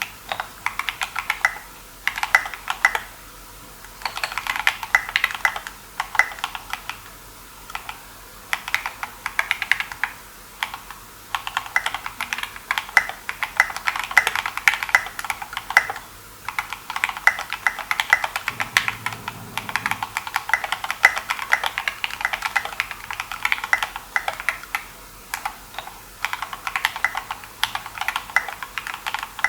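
Typing on a Think6.5 v2 mechanical keyboard now fitted with its maker's hotswap PCB, as a sound test of the new board. Quick runs of key clacks are broken by brief pauses.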